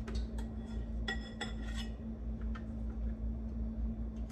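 Kitchen knife slicing a tomato on a plastic cutting board, the blade tapping the board several times at an irregular pace, a couple of taps with a brief ring. A steady low hum runs underneath.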